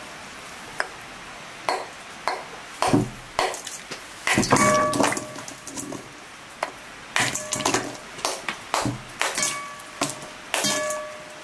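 A block of ice being struck again and again with a metal pounder to crush it: irregular sharp cracking knocks, several of them ringing with a short metallic ping as the blows and falling fragments hit the enamel bowl.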